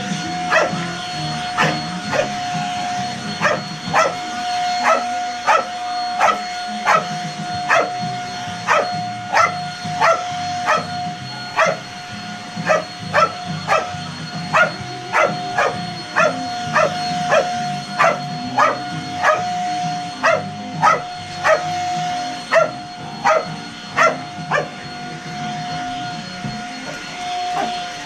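A dog barking over and over, short sharp barks about one to two a second, at a running stick vacuum cleaner, whose steady motor whine carries underneath.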